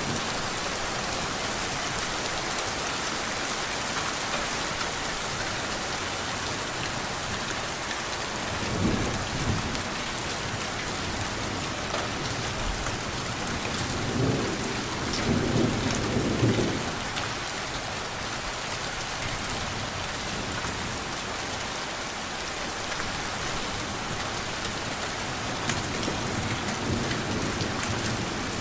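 Steady heavy rain, an even hiss, with low rumbles of thunder: a short one about a third of the way in and a longer, louder roll a little past the middle.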